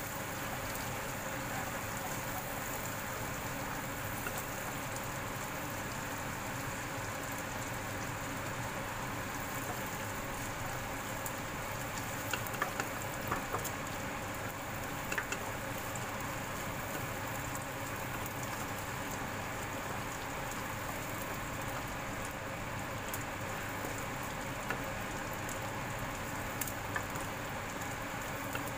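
Dried anchovies frying in hot oil in a wok: a steady sizzle, with a few sharp clicks from the wooden spatula stirring against the pan about halfway through.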